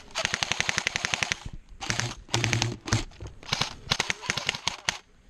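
Airsoft guns firing: a long full-auto burst of rapid clicking shots, about fifteen a second, then shorter bursts and a few single shots.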